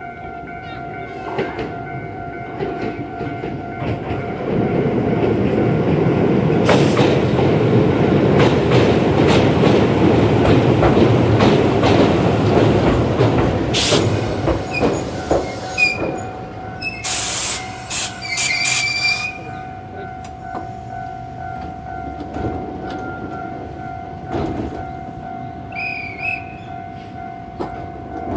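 Iyotetsu 700 series train running over a steel railway bridge, its wheels clacking over the rail joints in a rumble that builds for several seconds and then fades. Sharp hisses and high brake squeals follow as it slows, with another squeal near the end. A level-crossing warning alarm rings steadily throughout.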